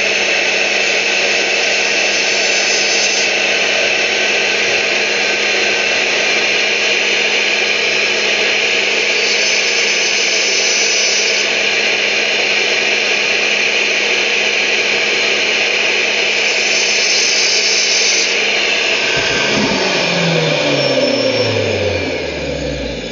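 Electric circular saw fitted with a wood-cutting blade, running at full speed with a steady hum and a few brief harsher stretches. Near the end it is switched off and the motor winds down, its pitch falling.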